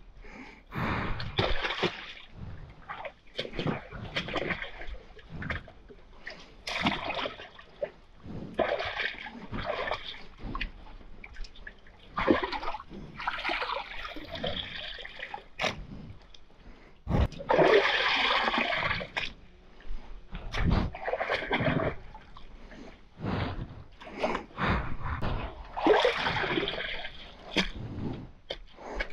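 Shovel digging in a flooded trench of wet clay, making repeated splashing, sloshing strokes every second or two. The longest splash comes a little past halfway.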